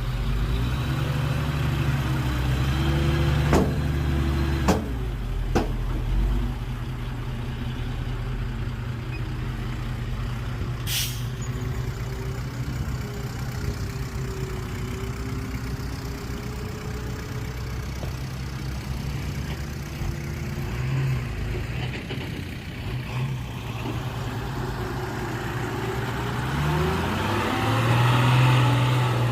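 Heavy earthmoving vehicle's diesel engine running steadily, with a few knocks in the first six seconds, a short air hiss about eleven seconds in, and the engine revving up near the end.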